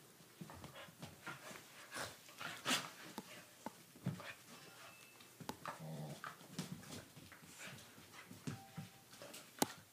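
A Doberman puppy and a corgi play-fighting: scattered scuffles and knocks of paws and bodies on the floor, with occasional short growls and whimpers, and one sharp knock near the end.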